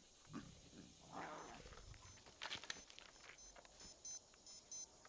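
High-pitched electronic beeping in quick repeated pairs, starting a little under four seconds in, typical of a digital wristwatch alarm. Before it there are only faint low rustles and rumbles.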